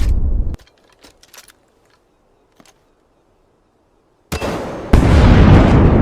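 Loud rumbling, crackling noise that cuts off suddenly about half a second in. After a near-silent gap with a few faint clicks, the loud noise starts again abruptly past the four-second mark and jumps louder half a second later.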